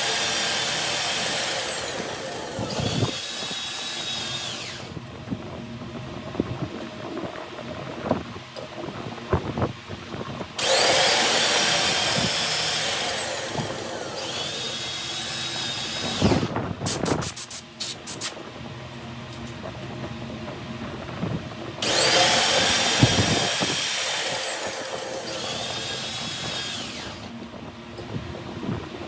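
A high-pitched power tool running in three bursts of about five seconds, each starting suddenly and winding down in pitch as it is released. Between the bursts come quieter scraping and scattered clicks.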